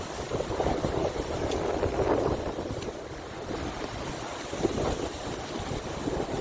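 Strong wind buffeting the microphone in gusts, with lake waves surging behind it.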